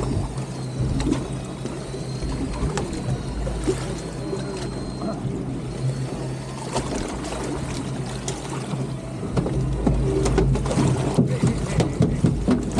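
A boat's engine running steadily at low speed, a constant low hum, with wind and water noise and scattered small knocks and clicks from gear on deck. The knocking gets busier and louder near the end.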